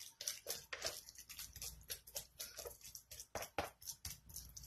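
Spatula stirring a sticky mass of melted mozzarella and egg in a bowl: irregular short clicks and scrapes against the bowl, a few each second.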